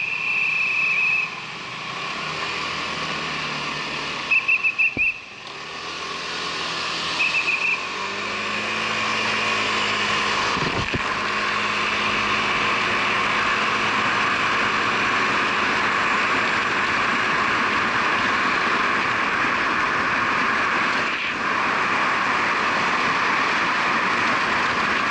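Motorcycle on the move, heard from an action camera sealed inside its waterproof housing. A few short high beeps come in the first eight seconds. Then the engine note rises as it pulls away, and a steady rush of wind and road noise takes over for the rest.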